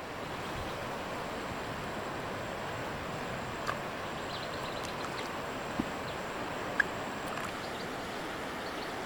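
Steady rushing of flowing water, with a few small sharp clicks or knocks around the middle.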